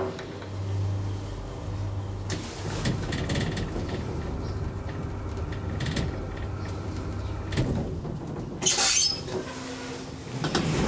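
DEVE hydraulic elevator car travelling in its shaft: a steady low hum of the hydraulic drive with scattered knocks and rattles of the bumpy ride. A loud hissing clatter comes about nine seconds in.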